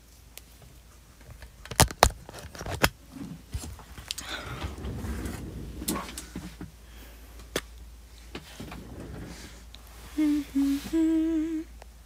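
A phone being handled, with a few sharp knocks about two seconds in and scuffling after, then a young woman humming three notes near the end, the last one held longer.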